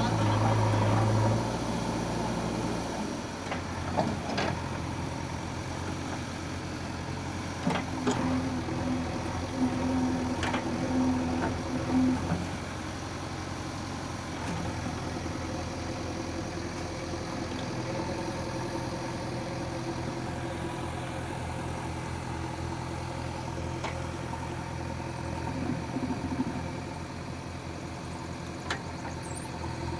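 JCB 3DX backhoe loader's engine running steadily, with a few sharp knocks and a higher hum that comes in for a few seconds near the middle.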